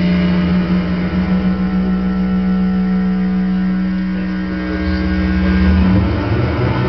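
Analog modular synthesizer playing a dense, sustained electronic drone of many held tones over a strong low note, with a faint pulsing underneath. About six seconds in, the low note gives way to a lower one.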